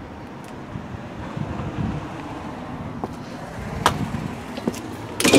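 A few sharp clicks at the lock of a wrought-iron security storm door, then a louder metallic clatter near the end as the door is worked open, over a low rumble.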